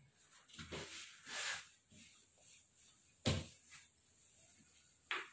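Whiteboard duster rubbing across a whiteboard as it is wiped clean, in soft swishes, with two sharp knocks, one past the middle and one near the end.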